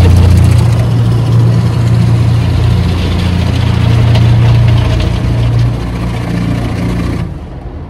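Automatic car wash machinery heard from inside the car: a loud steady low hum over a dense rushing hiss of spray and equipment, the hum stepping up slightly in pitch about a second in. The sound cuts off abruptly near the end.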